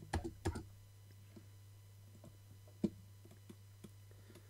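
A few faint clicks from working a computer as code is edited, the loudest about three seconds in, over a steady low electrical hum.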